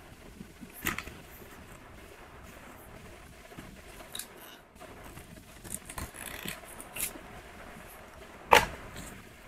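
Cardboard packaging of a phone charger being handled and folded by hand: scattered rustles and light clicks of the paperboard, with a sharper knock near the end.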